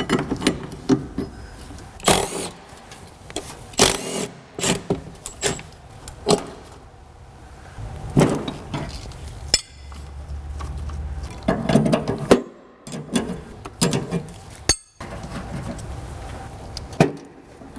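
Irregular clanks, knocks and rattles of metal parts and hoses being handled as an A/C accumulator and its aluminium line are pulled off a truck firewall and the wiring harness is worked loose, with rustling between the knocks and two brief dropouts.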